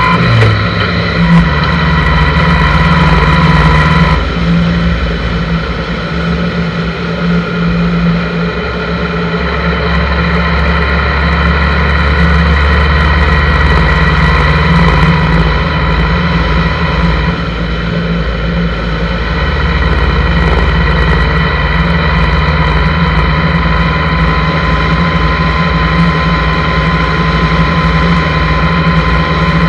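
Honda GL1100 Gold Wing's flat-four engine running steadily at road speed on a sidecar rig, with a steady whine over it. The whine fades for a moment about four seconds in and again past the middle.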